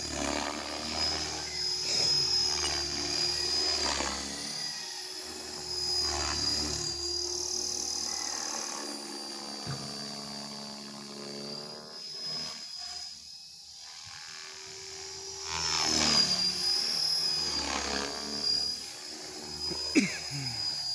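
ALZRC Devil X360 electric 3D RC helicopter flying on a 4-cell battery: a high motor and rotor whine that swells and fades and sweeps in pitch as it passes overhead, loudest about sixteen seconds in.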